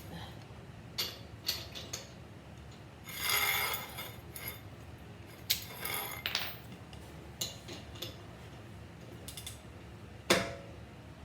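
Metal sockets and hand tools clinking and knocking as they are handled, with a scraping burst about a second long about three seconds in and a sharp knock near the end.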